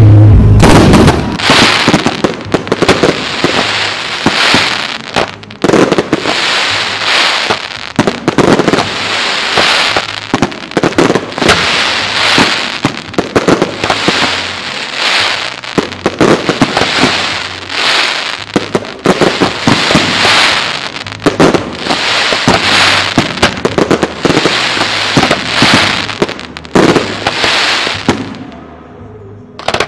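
Ground-launched fireworks firing shot after shot, each burst breaking into dense crackling and popping stars, in loud surges about every second or so. It opens with a heavy boom and dies away near the end.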